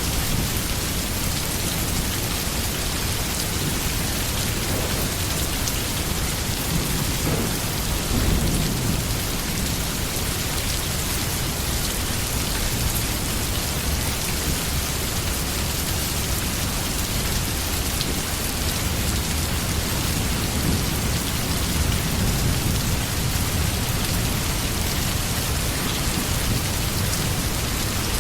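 Steady rain falling, an even hiss, with a low rumble underneath that swells slightly about eight seconds in.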